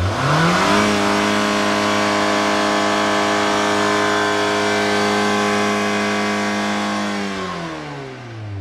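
Car engine revving up quickly, holding at high revs steadily for several seconds, then winding down near the end.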